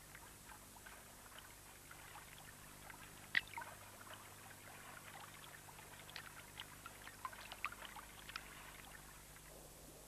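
Faint water sounds: soft lapping with scattered small drips and splashes, one sharper splash about three and a half seconds in and a cluster of small ones a little past halfway.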